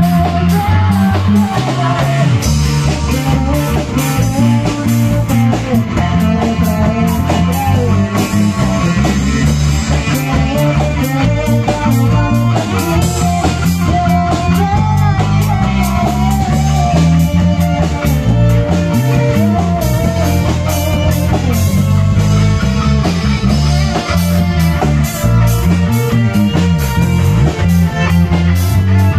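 Small rock band playing live, an instrumental passage: electric guitar carrying a wavering melodic lead over bass guitar and drum kit.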